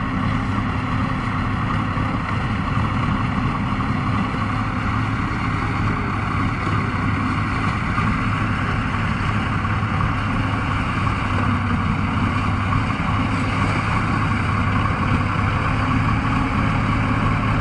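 Engine of a tracked amphibious all-terrain vehicle running with a steady drone as it works through a river of floating ice floes.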